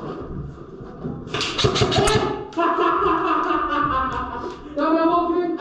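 Music with a sung or voiced melody, opening with a quick run of sharp, scratch-like clicks.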